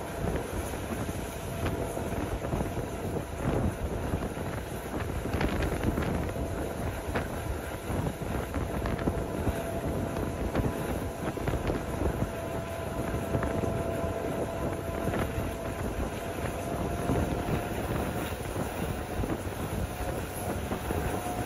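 Train running along the track, heard from on board: steady rumble and wind on the microphone, with irregular clacks and a thin steady whine that rises slightly in pitch near the end.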